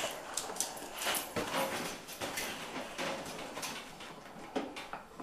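Golden retrievers scuffling in play over a towel: irregular clicks, knocks and rustling, with a sharper knock about four and a half seconds in.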